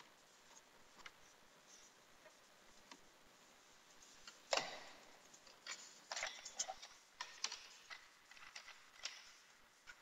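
HB pencil scratching on paper in short, irregular strokes, starting about halfway through with one louder stroke and then a run of quicker scrapes and taps.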